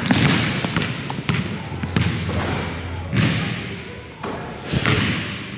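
Basketball dribbled on a hardwood gym floor, bouncing about once a second with echo in the large hall. A sharper, brighter hit comes about five seconds in.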